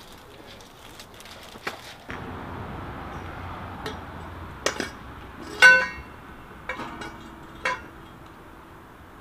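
Metal poles clanking and clinking as they are handled, with several sharp knocks. One loud ringing clang of struck metal comes a little after halfway.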